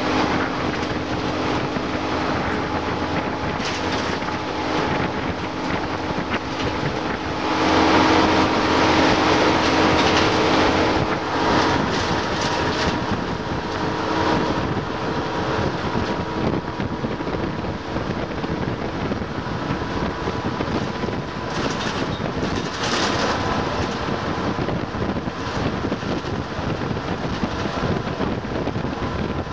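Inside a Leyland Olympian 11m double-decker bus under way: the diesel engine and drivetrain running steadily with wind noise, swelling louder for a few seconds about a quarter of the way in.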